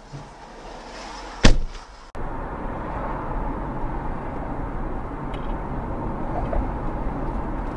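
A single loud bang of a car collision about one and a half seconds in, heard from inside a car. It is followed by steady road and wind noise of a car cruising at about 56 km/h.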